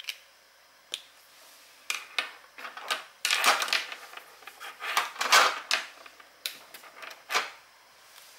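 Paper and stationery being handled on a desk while journaling: a couple of sharp clicks, then a busy run of scratchy rustles and taps from about two seconds in until shortly before the end.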